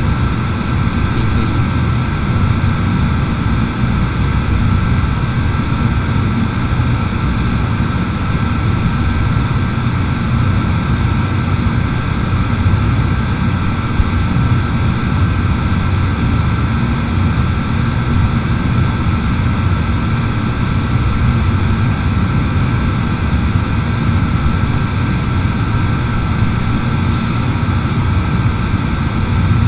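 Steady machine drone with a low rumble and a few faint high whines, unchanging throughout: continuous background noise picked up by the microphone.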